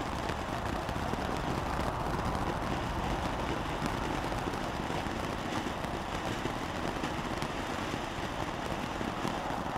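Frost Bite ground fountain firework spraying sparks: a steady hissing rush with a few faint crackles.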